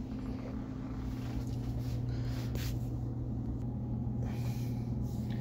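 Steady low hum of the room, with a few faint rustles of handling.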